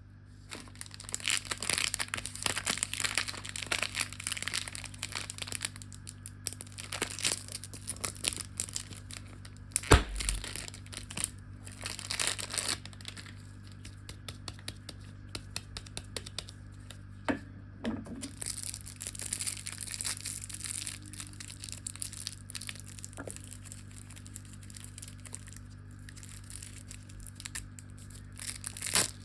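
Plastic candy and lollipop wrappers crinkling and tearing as the treats are unwrapped, in irregular crackly bursts, with one sharp knock about ten seconds in.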